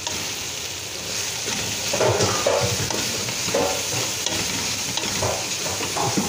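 Onion, tomato and spice masala sizzling in hot oil in an aluminium pot while a wooden spatula stirs it. The stirring grows louder about a second in, with short scrapes of the spatula against the pot every second or so.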